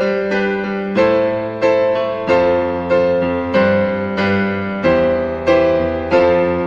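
Background piano music: a steady run of struck notes and chords, about one and a half a second, each fading before the next.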